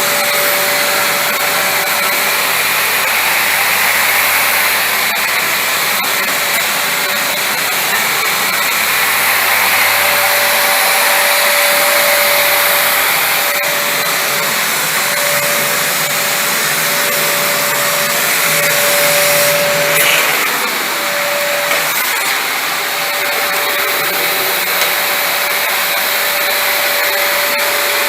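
Vacuum cleaner running steadily, with a whine that fades in and out over its motor noise; about twenty seconds in the sound briefly surges, then drops a little.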